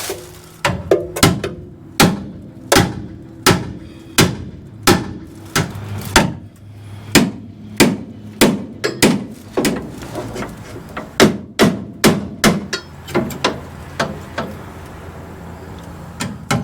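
Hammer blows on the steel front frame rail of a 1966 Ford Ranchero, straightening out curb damage: a steady series of sharp metal strikes, about one to two a second, each ringing briefly, with a pause of about two seconds near the end.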